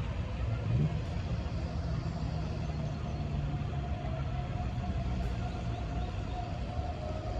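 Distant outdoor warning siren holding a steady, slightly wavering tone during a siren test, over a low rumble.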